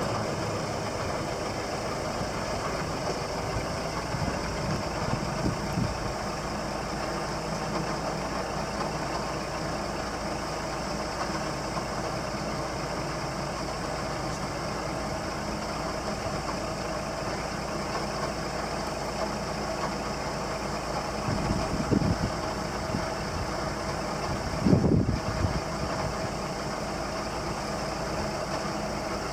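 Scania R480 truck's diesel engine idling steadily while its hydraulic hooklift arm raises. There are two brief louder swells, about 22 and 25 seconds in.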